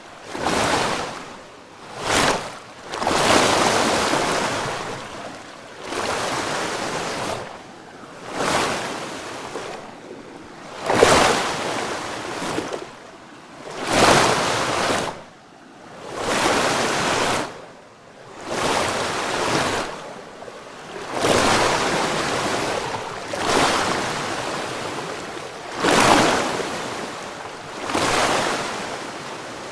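Ocean waves breaking and washing ashore, one after another every two to three seconds, each a swell of rushing noise that rises and falls away.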